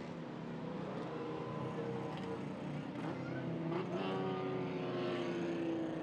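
An unseen motor vehicle's engine running and passing by. It grows louder towards the end, and its pitch sinks slightly as it goes past.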